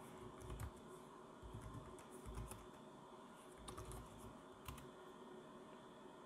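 Faint typing on a computer keyboard: irregular key clicks as a command line is typed, with one separate sharper keystroke about three-quarters of the way through.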